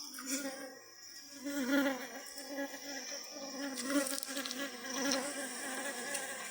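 Honeybees buzzing close by: a hum that wavers in pitch as they fly around, with a few light clicks.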